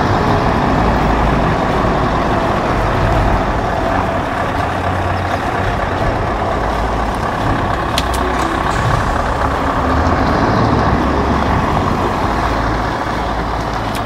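Scania R580 tractor unit's V8 diesel running steadily at low speed as it manoeuvres a low-loader trailer, with a few sharp clicks about eight seconds in.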